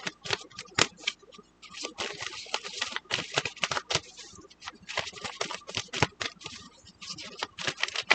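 Tarot cards being shuffled and handled: an irregular run of quick papery clicks and slaps, with short sliding rustles between them.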